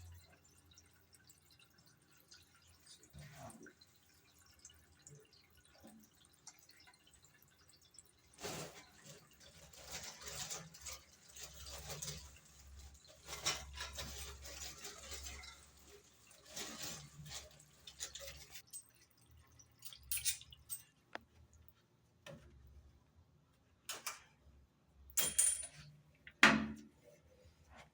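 Water dripping and splashing in bursts, with a few sharp knocks near the end.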